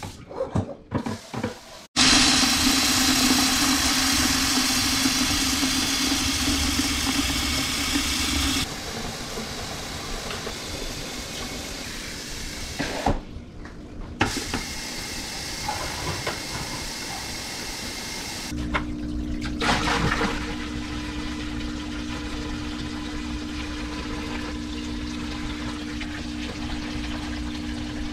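Kitchen sink faucet running full into 5-gallon plastic buckets: a loud, steady rush of water that drops in level after about eight seconds and breaks off briefly twice. A steady low hum runs under the water for the last third.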